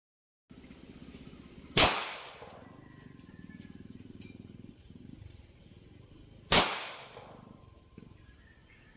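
Two shots from an Arex Rex Delta 9 mm pistol, about five seconds apart, each a sharp crack with a short echoing tail.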